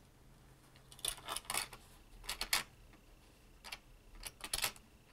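A die-cast toy car being pushed by hand into the plastic car hauler's lower parking bay: three short bursts of light clicking and rattling as it knocks against the plastic.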